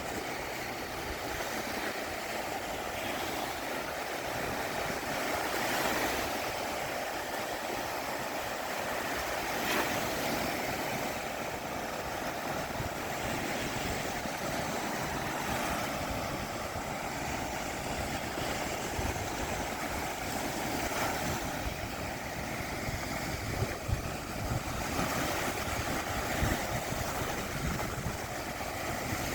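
Black Sea surf washing on the shore in slow, overlapping swells, with wind buffeting the microphone in low gusts during the second half.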